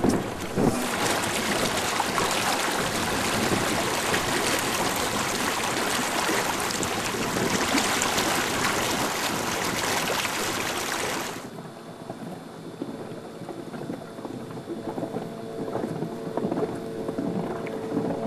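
Wind and water rushing past a boat under way, a loud steady noise that cuts off abruptly about eleven seconds in. A quieter wash of water and wind follows, with a faint steady hum.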